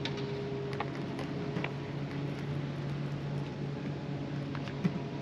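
Fishing reel being wound in against a heavy fish, a steady low hum with a few faint scattered ticks.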